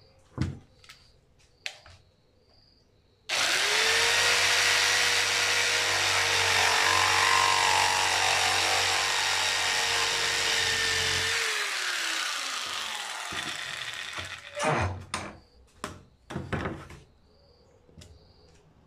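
Corded jigsaw cutting through PVC pipe held in a vise: the motor starts suddenly about three seconds in and runs steadily for about eight seconds with the blade sawing through the plastic, then is switched off and winds down with a falling whine. A few knocks of handling follow near the end.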